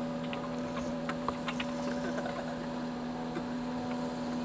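A steady low hum made of several unchanging tones, with a few faint scattered clicks over it.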